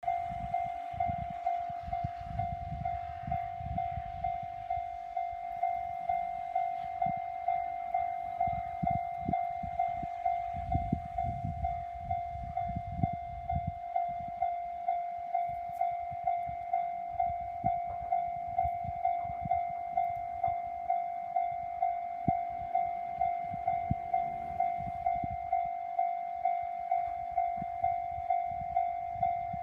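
Japanese railway level-crossing warning bell ringing, an electronic ding repeating evenly about twice a second. A low rumble comes and goes under it in the first half.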